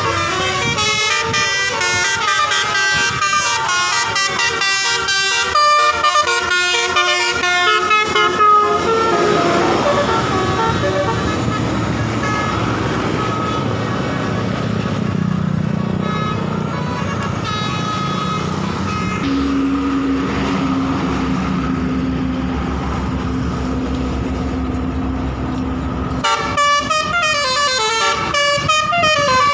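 Indonesian bus 'telolet' multi-tone horns (Basuri type) playing fast stepping melodies for the first eight or nine seconds. Then comes road and engine noise with a steady low hum, and a second burst of telolet melody near the end.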